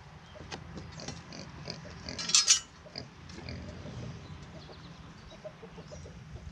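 A pig grunting repeatedly close by, with one short, loud, noisy sound about two seconds in.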